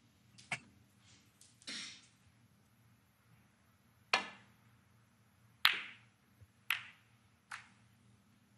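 Snooker cue striking the cue ball with a sharp click, followed by a few more clicks of snooker balls knocking into each other. A smaller click and a short rustle come in the first two seconds.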